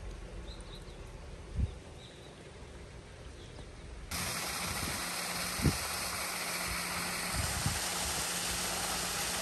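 Quiet open-air background with a few faint chirps and a low bump, then about four seconds in the steady rush of a waterfall cuts in suddenly and carries on.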